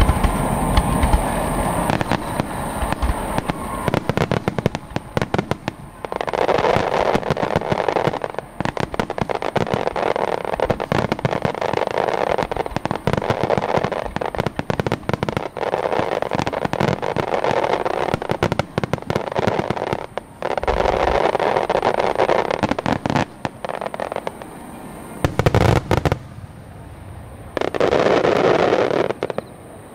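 Fireworks display: shells bursting in rapid volleys with long stretches of dense crackling, broken by short lulls, and a heavy low boom about 25 seconds in.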